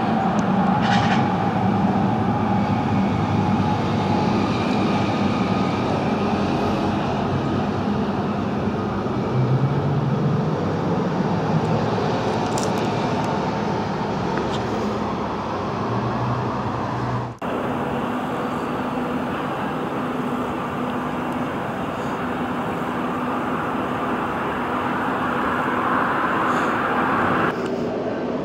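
Steady urban road and rail traffic noise, with low engine hum from passing vehicles coming and going; the sound breaks off for a moment about seventeen seconds in, then carries on much the same.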